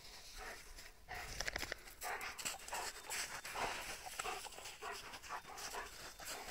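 German shepherd panting in quick, irregular breaths as it noses through snow, searching.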